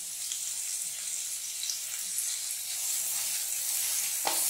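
Chopped onions sizzling in hot oil in a kadai, a steady hiss as they fry toward soft. A wooden spatula scrapes through them once near the end.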